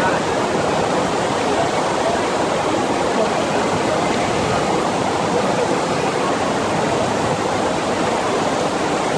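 FlowRider wave machine: a steady rush of pumped water sheeting over the ride surface, a constant roar of moving water.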